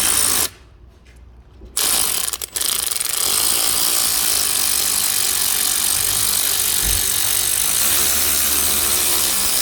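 Cordless power tool running on a 13 mm swivel socket to unscrew the upper AC compressor mounting bolt. It runs briefly, stops, gives a short burst about two seconds in, then runs steadily for about seven seconds.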